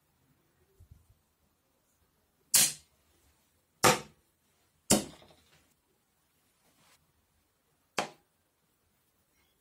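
Hard objects knocked down on a wooden worktable: three sharp knocks a little over a second apart, then a lighter, shorter knock near the end.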